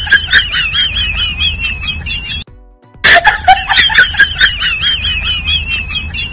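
A comic sound effect: a high, rapidly wavering trill like a giggle over a low hum, played twice in a row with a short break between.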